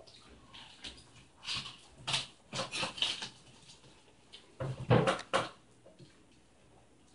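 Irregular eating and food-handling noises: scattered clicks, rustles and mouth sounds, with a louder knock-like cluster about five seconds in.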